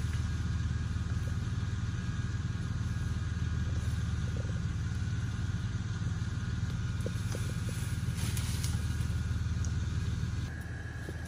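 An engine running steadily in a low, even drone, which stops about ten and a half seconds in.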